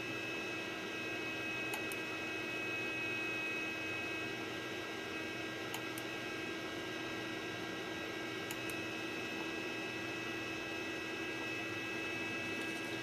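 2005 iMac G5 rev A running: a steady rush of fan noise with an electrical hum and several steady high-pitched tones over it, and a few faint ticks. The hum and whine are power-supply noise that the owner traced to a faulty logic board.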